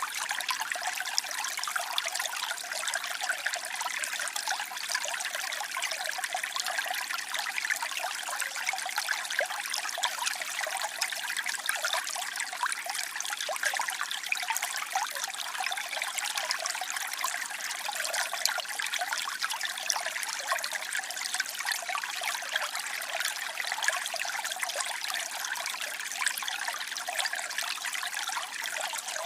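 Waterfall splashing steadily: an even rush of falling water made of many small splashes, bright and hissy with little deep rumble.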